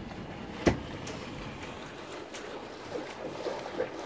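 Wind and water noise aboard a sailing yacht under way, with one sharp knock less than a second in and a few short, faint creaks near the end.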